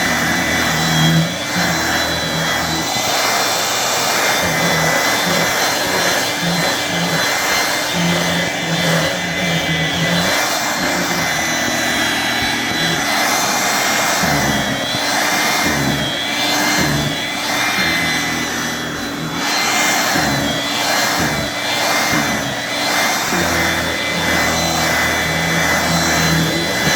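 1985 Hoover Brush Vac with an indirect-air motor running steadily with a high motor whine, kind of quiet. Its stiff brush roll agitates as it is pushed over the floor and rug, and a low rumble comes and goes with the strokes.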